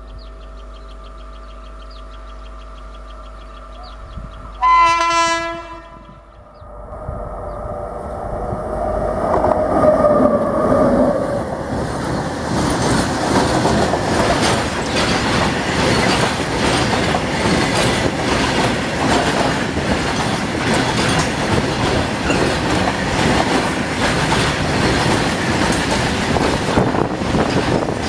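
WAG-9 electric locomotive approaching with a steady hum, sounding its horn once about five seconds in for about a second and a half, then passing close by. A long rake of freight wagons follows, wheels clattering rhythmically over the rail joints.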